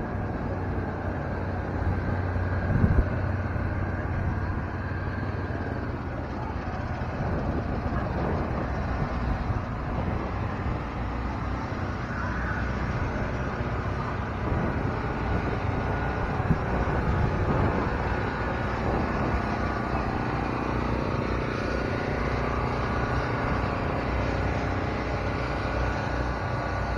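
A motor vehicle engine running steadily under continuous outdoor background noise, its low hum strongest in the first few seconds.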